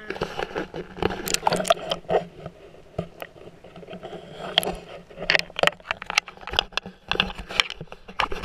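Camera handling noise: irregular knocks, taps and scrapes as the camera is grabbed and moved about close to the lens.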